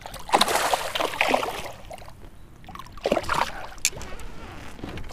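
Water splashing and sloshing beside the boat as a hooked smallmouth bass is brought in, mixed with rustling as clothing rubs over the camera. A few sharp clicks come about three to four seconds in.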